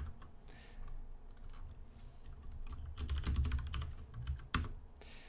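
Typing on a computer keyboard: scattered keystrokes, a quick run of them about three seconds in, and a single sharper click near the end.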